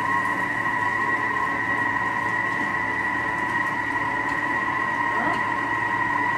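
Thermomix food processor running at speed 4, a steady motor whine with two strong tones, its blade mixing a thick dough of cake and mascarpone while a spatula is worked through the lid opening. It stops abruptly at the very end.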